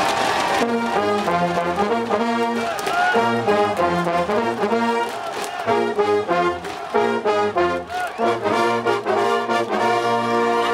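A marching band's brass section, trumpets and trombones, comes in about half a second in with a baseball cheer tune, playing short phrases with brief breaks. Just before it the crowd is heard.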